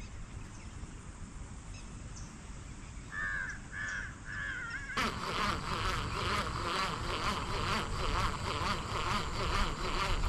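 Crows cawing, a few short calls in the first half. About five seconds in, a louder rhythmic rasping starts suddenly, pulsing about four times a second.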